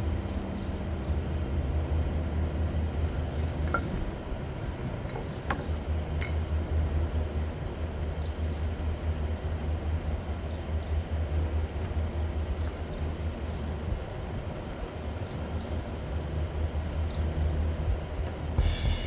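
Chevy 3500 HD pickup truck running with a steady low rumble, with a few faint clicks about four to six seconds in.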